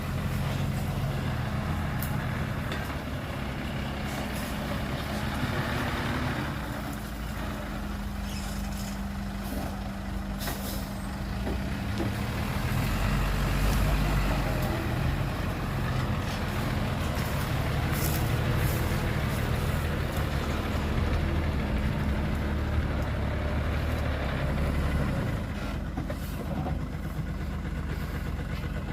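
Heavy diesel dump truck engines running with a steady low drone, with a few brief hisses.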